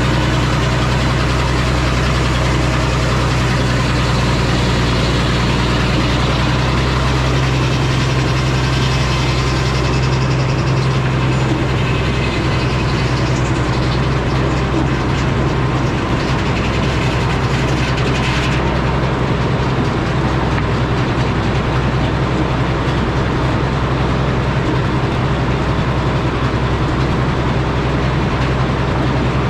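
Engine-driven Frick sawmill running: a steady, heavy engine drone with dense mechanical noise over it. The high hiss changes from about ten seconds in and drops away sharply about eighteen seconds in.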